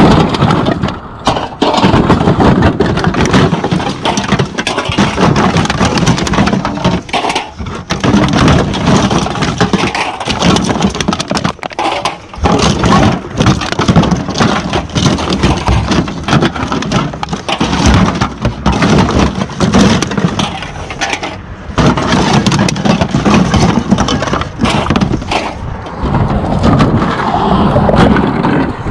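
Continuous loud crackling and clattering: many small knocks and rattles in quick, irregular succession.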